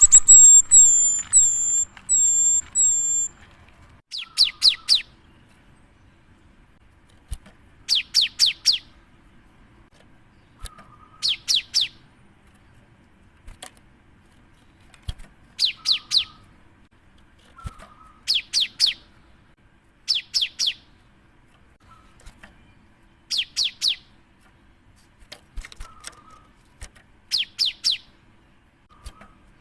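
Cinereous tit (gelatik batu) singing: a run of five high whistled notes at first, then short phrases of three or four quick descending notes, each led by a short lower note, repeated about every three seconds.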